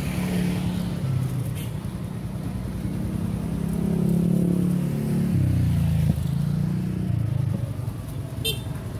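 Motorbike engine running close by, its note rising and then dropping suddenly about five seconds in. A short high squeak comes near the end.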